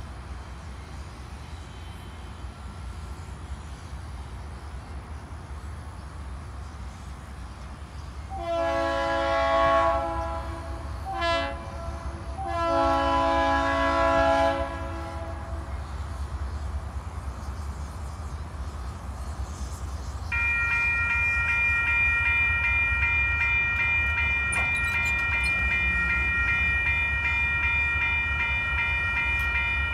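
An approaching freight train's diesel locomotive air horn sounds several notes together in a long blast, a short one and another long one, the grade-crossing horn signal. About two-thirds of the way through, the crossing's electronic warning bell starts ringing steadily as the signals activate and the gates come down.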